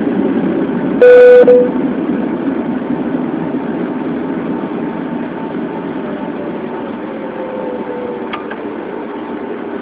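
Steady vehicle engine and road rumble, with a loud, short horn honk about a second in.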